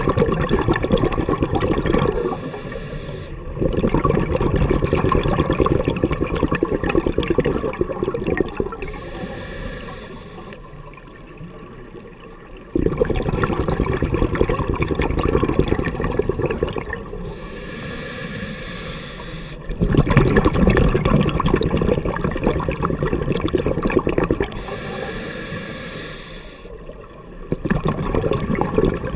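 Scuba diver breathing through a regulator underwater. Each slow breath has a short hiss from the regulator on the inhale, then several seconds of rushing, bubbling exhaust on the exhale. There are four breath cycles.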